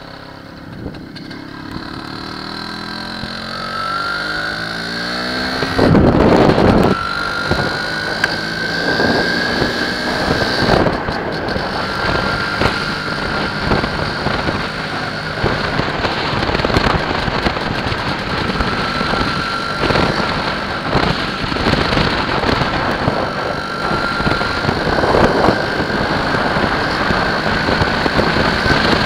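MZ ETZ 301's single-cylinder two-stroke engine pulling away and picking up speed, its pitch and loudness rising over the first few seconds. From about six seconds in, wind buffeting on the bike-mounted microphone becomes loud and largely covers the engine.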